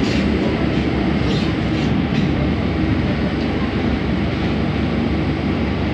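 Interior running noise of a Scomi/MTrans two-car rubber-tyred monorail train rolling into a station, heard from inside the car: a steady low rumble.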